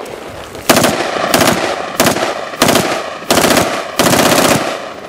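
M16-style rifle firing a string of about six shots, roughly one every two-thirds of a second, the last two longer and drawn out.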